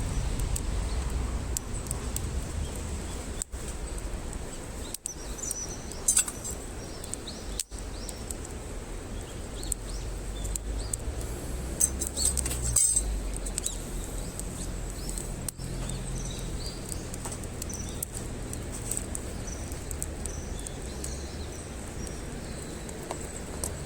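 A burning campfire crackling steadily against a low rumble of outdoor noise, with a few sharper pops around a quarter of the way in and again near the middle. Birds chirp faintly in the background.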